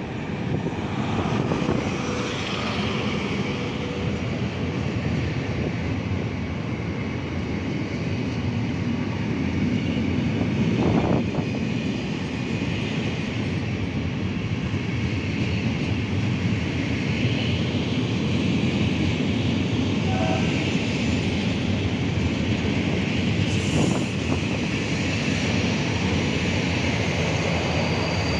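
Freight train of cement hopper wagons rolling slowly past behind an M62 diesel locomotive: a steady heavy rumble of wheels on rails, with the locomotive's diesel engine running and a sharp clank now and then.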